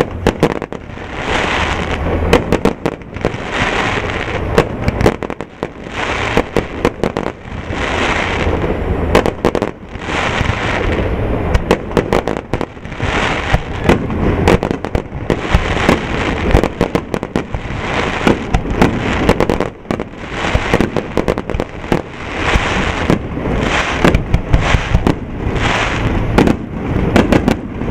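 Aerial firework shells launched and bursting in a continuous barrage: many sharp bangs close together over a hiss that swells and fades about every two seconds.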